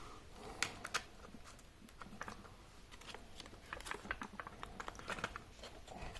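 Faint irregular small clicks and crackles as a smartphone's plastic back cover is pried away from its adhesive, with two sharper clicks about a second in.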